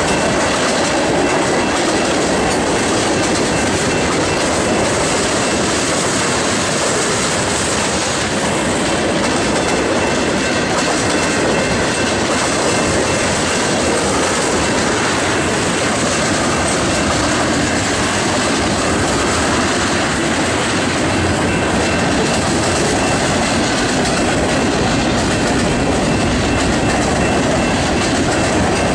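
Freight train of loaded tank cars and covered hoppers rolling past at speed: a steady, loud noise of steel wheels running on the rails, with a faint thin high tone running underneath.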